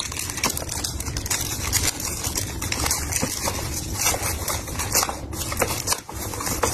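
Parcel packaging being handled and torn open, with irregular crinkling and crackling.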